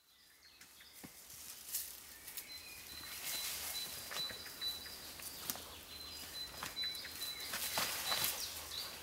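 Woodland sound fading in over the first couple of seconds: birds chirping, with a thin high note repeated on and off, over scattered crackles and snaps of twigs and bark as a person climbs a tree.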